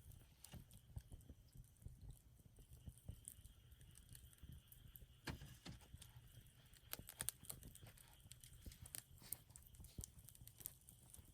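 Wood campfire crackling faintly, with scattered irregular pops and snaps from the burning wood.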